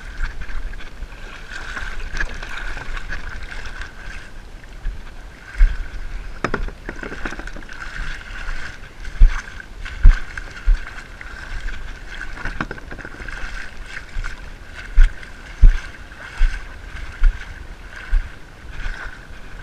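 Shallow water swishing around a wading angler's legs, a steady hiss, with irregular dull thumps on the microphone, the loudest a pair about halfway through and another pair near the three-quarter mark.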